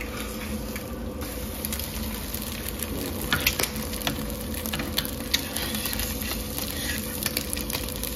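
Omelette sizzling in a frying pan, with a slotted metal spatula scraping and tapping against the pan in quick clicks from about three seconds in.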